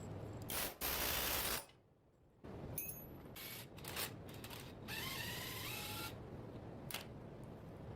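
Hand tools working on a car's front suspension during disassembly: two short, loud rushing bursts in the first two seconds, then ratchet-like clicks and metal clinks with a rising squeak about five seconds in.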